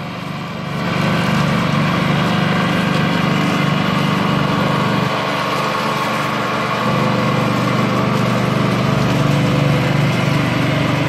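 Ride-on lawn mower's petrol engine running steadily under load as it cuts grass, growing louder about a second in.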